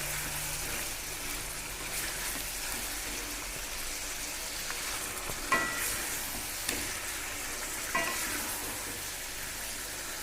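Chicken pieces with freshly added tomato paste frying in oil, a steady sizzle as they are stirred in the pan. Two sharp ringing clinks, about five and a half and eight seconds in, sound over the sizzle.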